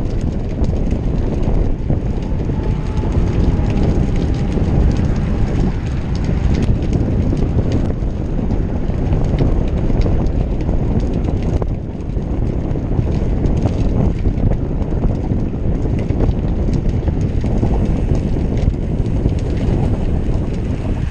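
Steady wind rushing over the microphone of a camera riding on a moving road bicycle, with scattered light clicks and rattles.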